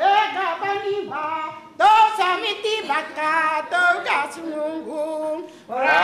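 A group of women singing together unaccompanied, in sung phrases with short pauses for breath.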